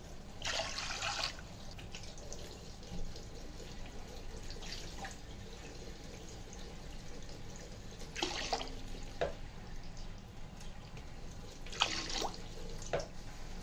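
Water poured in several short pours into sugar in a metal karahi, as sugar syrup is started; each pour lasts under a second, with the clearest near the start, about eight seconds in and about twelve seconds in.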